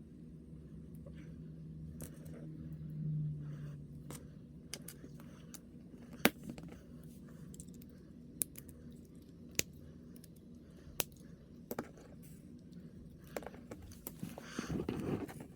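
Small plastic figure parts being handled and snapped together by hand: scattered sharp clicks, the loudest about six seconds in, with a stretch of rustling handling near the end.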